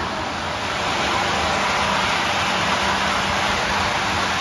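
Model trains running on three-rail metal track: a steady rumble of wheels on rail, with a low hum underneath.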